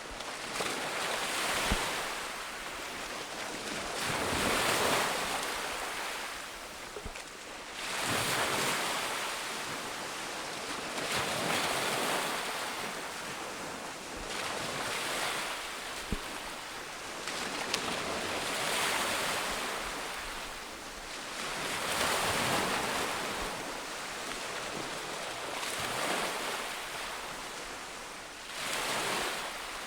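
Ocean waves breaking on a beach and washing up the shore, swelling and falling back about every three to four seconds.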